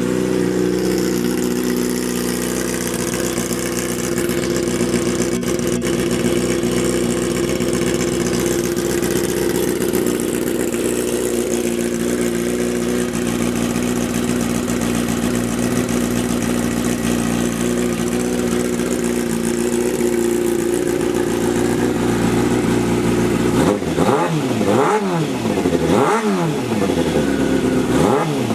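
2004 Yamaha YZF-R6's 600 cc inline-four engine idling steadily, then blipped a few times near the end, its pitch rising and falling with each rev. The restored bike is running.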